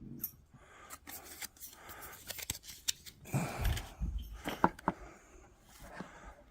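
Handling noise of a small case and its contents: a string of clicks and taps with rustling, and a low bump a little past halfway.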